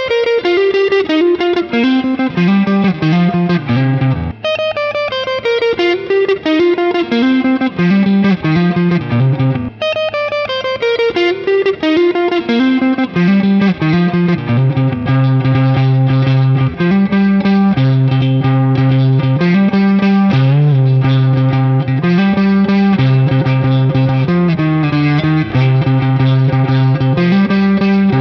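Electric guitar with an ST-style single-coil body, played through a Caline Pure Sky, a Timmy-clone transparent overdrive pedal. It plays descending note runs three times, then rings out held chords over a steady low note.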